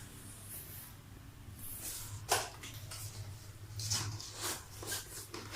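A package being handled and opened by hand: scattered rustles and scrapes of cardboard and packing, with a sharper knock about two seconds in and a cluster of scrapes near the end.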